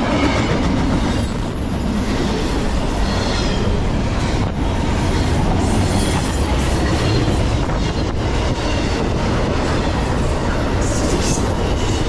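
Double-stack intermodal freight cars rolling past close by at speed: a steady, loud rumble of steel wheels on rail, with faint high wheel squeal now and then.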